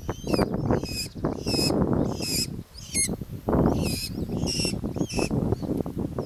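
Small falcon calling: a series of about eight short, high calls over a steady low rustle of leaves and wind noise.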